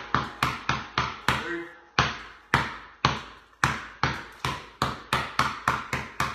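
Basketball dribbled hard on a concrete garage floor, each bounce a sharp slap with a short echo off the bare walls. The bounces come about three to four a second and slow for a moment in the middle as the dribbler steps through lunges.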